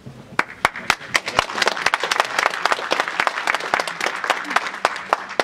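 Audience applauding: a few single claps at first, building into many people clapping together, then stopping near the end.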